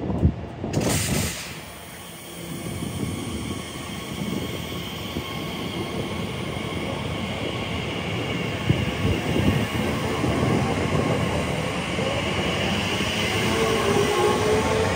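Elizabeth line Class 345 electric train pulling away from the platform, its traction motors whining and rising in pitch as it gathers speed, with wheel and rail noise. A couple of loud knocks in the first second or so.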